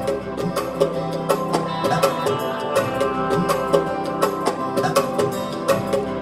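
Korg Pa700 arranger keyboard playing an Indian-style auto-accompaniment, with pitched melody notes over a busy, even percussion pattern of several hits a second.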